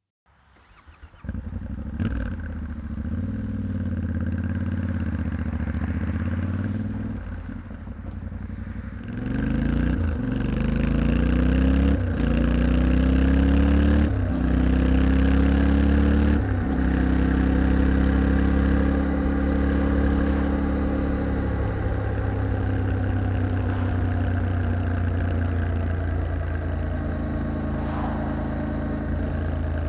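A vehicle engine starts about a second in and runs steadily. Then it pulls away, its pitch rising and dropping back sharply four times as it shifts up through the gears, and settles into a steady cruise.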